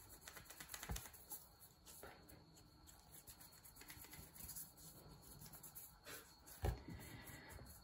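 Faint rubbing and light taps of hands rolling a piece of dough into a log on a wooden cutting board, with one dull thump near the end.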